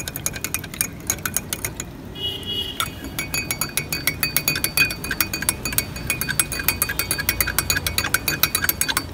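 Metal teaspoon stirring sugar into glass mugs of tea, clinking quickly against the glass, which rings. A short pause about two seconds in, then the stirring goes on in the second glass.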